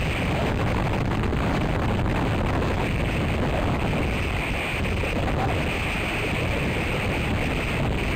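Strong storm wind rushing through the pine branches and buffeting the microphone as a steady, unbroken noise.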